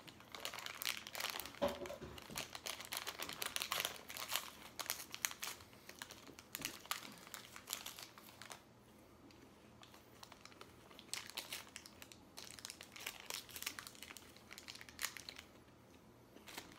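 Crinkly candy wrapper of peanut-butter M&M eggs being handled and pulled open by hand. The crackling is dense for the first half, thins out, and picks up again in a shorter spell a few seconds before the end.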